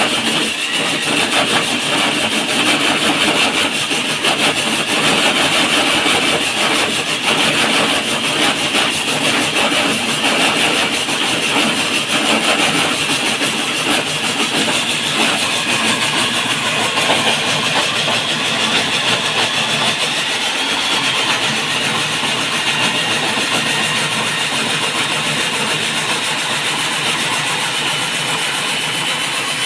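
Electric diamond core drill running steadily while it bores into a concrete slab, a continuous motor whine with a rough grinding edge that smooths out over the second half.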